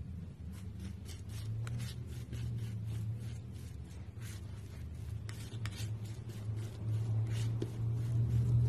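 A palette knife scraping and crunching through thick, crumbly yellow paint in many short, irregular strokes, over a steady low hum.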